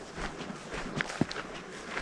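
Footsteps of a person walking, an irregular series of short crunching steps over faint outdoor background noise.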